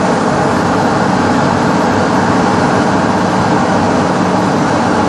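1000B wire bunching machine running at speed, twisting wire and winding it onto its take-up bobbin: a loud, steady mechanical whir with a constant low hum underneath.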